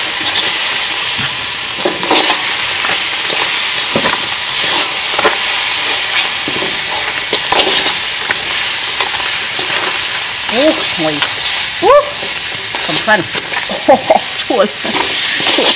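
Crab pieces frying in a hot wok with a continuous sizzle, while a metal ladle and spatula toss them, scraping and knocking against the pan. In the last few seconds the utensils give short, louder squeaky scrapes.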